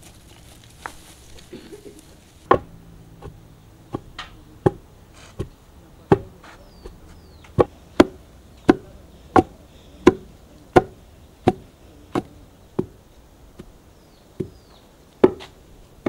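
Steady chopping: a blade striking a wooden surface in sharp, even strokes about every 0.7 seconds, settling into its rhythm about two and a half seconds in.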